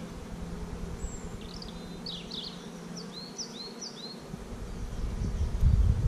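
Honeybees buzzing around an open hive, a steady low hum. A few short high chirps sound between about 1.5 and 4 seconds in, and a low rumble swells from about 4 seconds on.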